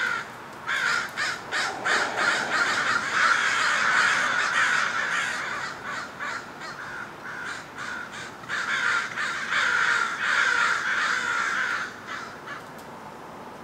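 American crows cawing in quick, overlapping runs of calls. The cawing is busiest early on and again around the middle to later part, then thins to a few calls near the end.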